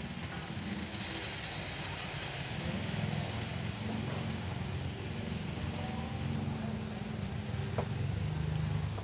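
Aerosol spray can hissing steadily as it sprays white artificial snow onto a die-cast toy car, cutting off sharply about six seconds in, over a low steady background rumble.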